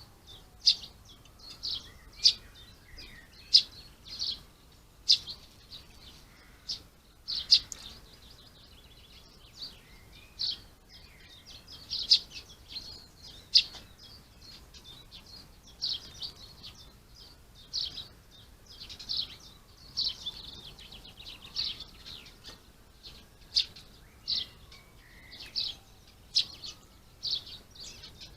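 Small garden birds calling with short, high chirps, repeated about every second, with some faint lower calls between.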